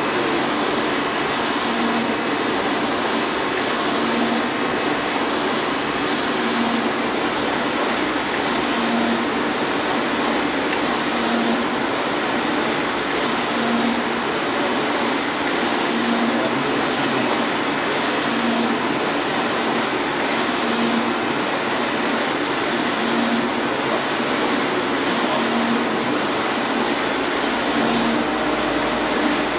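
UV flatbed inkjet printer running, its print carriage with UV curing lamp shuttling back and forth across the bed as it prints onto a plastic sheet. A steady whirring hiss with a regular rhythm repeating a little more than once a second, one for each carriage pass.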